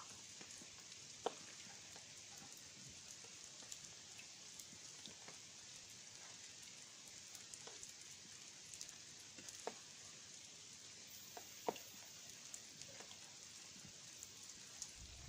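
Near silence: a faint steady hiss with a few soft scattered ticks.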